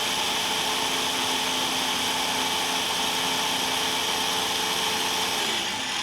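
Blender running steadily, blending a smoothie until it is thin as water. Near the end it is switched off and the motor's pitch drops as it spins down.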